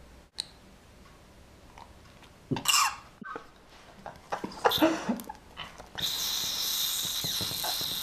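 Masked lovebird giving sharp squawks and chattering calls, then a steady raspy hiss from about six seconds in as it spreads its wings at an approaching hand, a defensive threat display.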